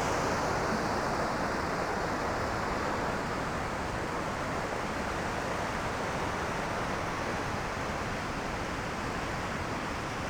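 Steady rushing roar of Jog Falls' monsoon-swollen waterfall.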